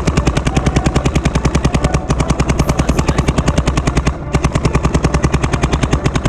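Paintball marker firing in rapid, even strings of about a dozen shots a second, with brief breaks about two and four seconds in.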